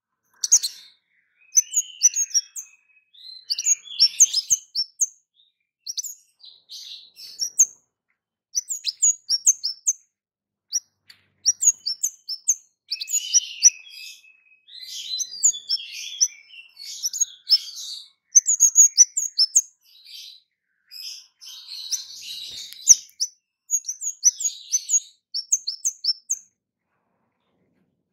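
Orange-headed thrush (kemade) singing: bursts of sharp, high chirps and quick notes, each burst a second or two long, with short pauses between.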